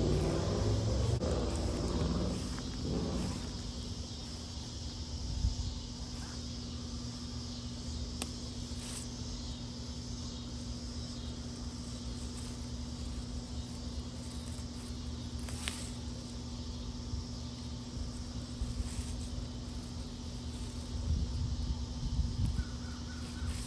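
Leaves and stems rustling with handling noise for the first few seconds as a hand moves through a leafy garden shrub, then a steady low hum of outdoor background with a few faint clicks.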